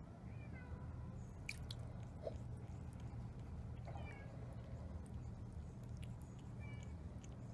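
A cat licking water off its wet paw dipped in a metal water bowl, faint small wet licking clicks, over a steady low hum with a few short high chirps in the background.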